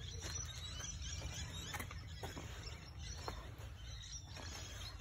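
Quiet outdoor background: a steady low rumble with a few soft, scattered clicks and knocks from a handheld phone being moved around.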